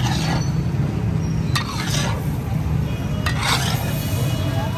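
Steel spatula scraping and chopping daal-and-egg mixture across a large flat iron tawa, in three scraping strokes about a second and a half apart, over a steady low rumble.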